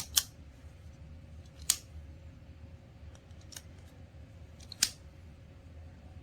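Folding pocket knife's blade being snapped open and shut, giving sharp clicks: a quick double click at the start, then single clicks a second or two apart, one fainter.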